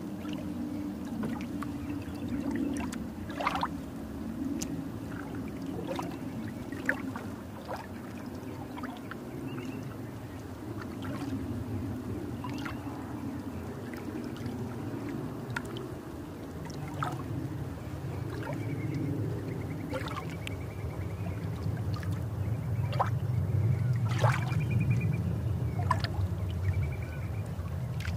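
Underwater recording of a dog paddling at the surface: a muffled low churning of water from its strokes, with scattered sharp clicks and pops, growing louder over the last few seconds.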